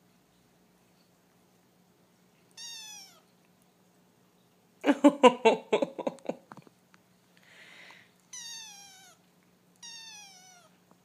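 A young kitten mewing three times, each a short high cry falling in pitch. About halfway through comes a louder stuttering run of quick pulses lasting about a second and a half.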